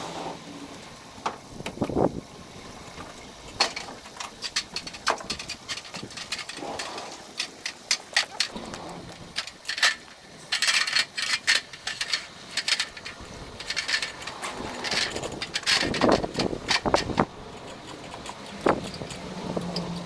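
Irregular metallic clanks and knocks from an aluminium extension ladder being handled and stood against a brick wall, the sharpest clatter coming in clusters about halfway through and again later.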